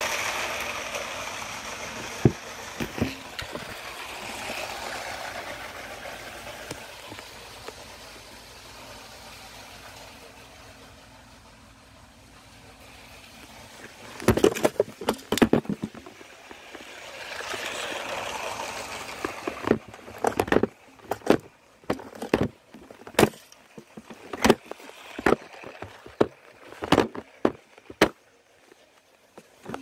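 A hiss that fades away over about ten seconds, then a string of sharp clicks and knocks, roughly one a second, as plastic pieces and the camera are handled.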